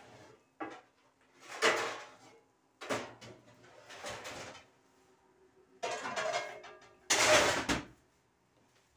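Kitchen handling noises: six short bursts of rustling and clatter with pauses between them, the loudest near the end.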